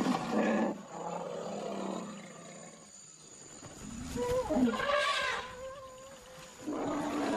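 African forest elephants calling as they jostle at a salt lick: loud, low roaring calls in the first second and again later, with a longer, higher call in the middle, and another call starting near the end.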